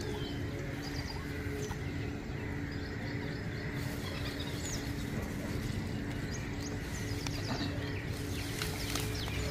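Small birds chirping over a steady low hum and a low rumble. Near the end come short clicks and rustles, like grass being handled.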